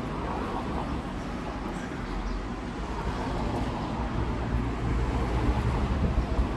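Steady low rumbling outdoor background noise with no clear single source, growing a little louder toward the end.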